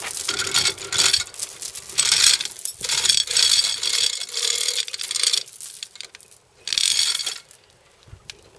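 Ratchet strap being tightened, its pawl clicking in several quick runs of strokes, with a pause about six seconds in before one last short run. The strap is under tension, pulling the crumpled front panel back out.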